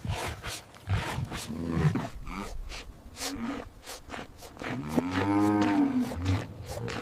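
Cows mooing: a few shorter calls, then one long low moo about five seconds in.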